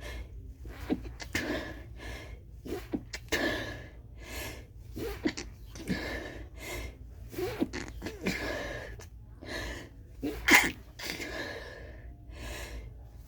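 A person stifling a long run of sneezes: quick gasping in-breaths, each followed by a muffled, held-back sneeze, repeated about once a second. The sharpest, loudest stifled sneeze comes about two-thirds of the way through.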